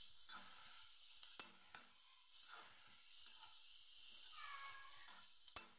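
Baby corn and onions frying with a faint steady sizzle in a kadai as a spatula stirs them, with a few light clicks and scrapes of the spatula on the pan. A brief high-pitched wavering sound comes about four and a half seconds in.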